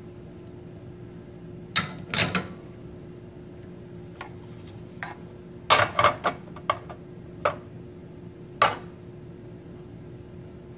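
Sharp clinks and taps of a glass measuring cup and hands knocking against the scale and espresso machine drip tray, about ten in all: a pair about two seconds in, a quick cluster around six seconds in, then single knocks. A faint steady hum runs underneath.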